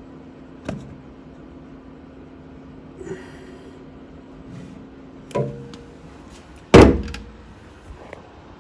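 Handling knocks and bumps against hard objects: a few light clunks, then one heavy thump about two-thirds through that is by far the loudest, over a steady low hum.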